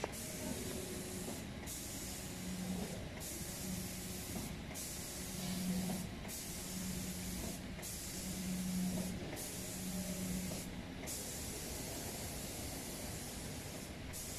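Steady hiss of an automatic spray-painting machine's spray gun, broken by short gaps about every second and a half, with a low hum that comes and goes in the same rhythm as the spray head travels.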